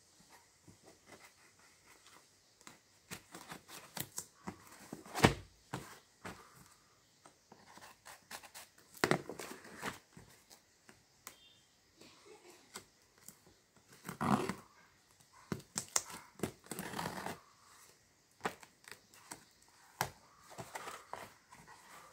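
A cardboard parcel being cut and opened: a craft knife slitting packing tape, with cardboard scraping, tearing and being pulled open. Irregular taps and scrapes, with a few louder tearing bursts.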